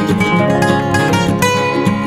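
Background music: quick plucked guitar notes over a steady accompaniment.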